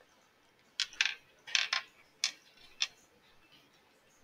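About six short, light clicks or ticks scattered over two seconds, starting about a second in.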